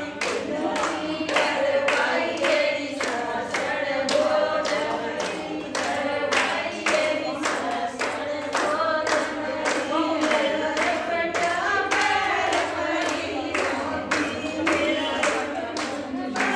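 A group of women singing a Haryanvi folk song together without instruments, with steady rhythmic hand-clapping keeping the beat.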